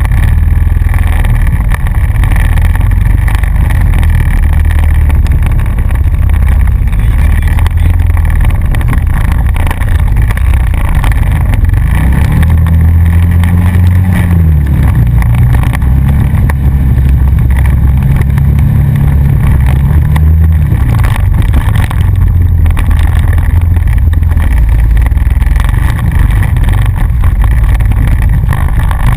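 Honda Rancher utility ATV engine running on a trail ride, close and loud with a heavy low rumble. Between about 12 and 21 seconds in, the engine note rises and falls as the throttle is opened and eased off.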